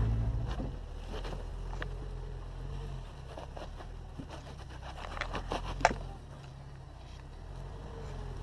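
Jeep engine running low and steady as it crawls slowly over rocks. Scattered clicks and scrapes on rock, with one sharp click about two-thirds of the way through.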